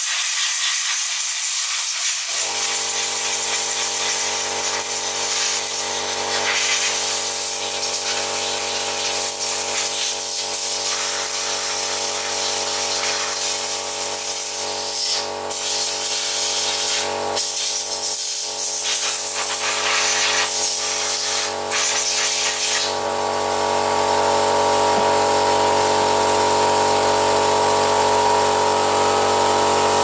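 Compressed air hissing from a blow gun as a chainsaw is blown clean. About two seconds in, an air compressor's motor starts and runs steadily under the hiss, getting a little louder near the end.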